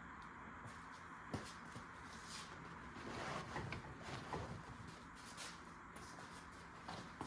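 Plastic side cover of a truck bench seat being worked back and forth to pry it off, giving faint scattered rubbing, rustling and small clicks, with a sharper click about a second and a half in.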